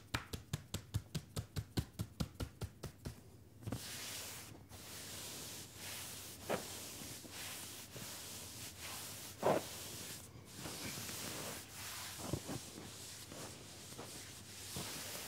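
Hands drumming fast and evenly on a jean-clad leg in a percussive massage, about five strokes a second, stopping about three seconds in. Then hands rubbing and pressing along the denim, a steady rustling hiss with a few soft thumps.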